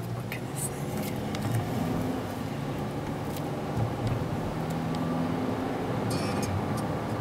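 Car engine and road noise heard from inside the cabin as the car pulls away through a turn and gathers speed, growing louder over the first couple of seconds and then holding steady, with a few faint clicks.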